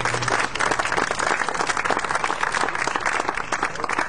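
A small group of people applauding: many hand claps overlapping in a steady, dense patter.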